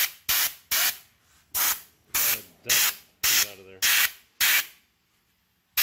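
Short blasts of compressed air from an air-compressor blow gun, about nine quick squirts, blowing dust out of a graphics card's cooler fan.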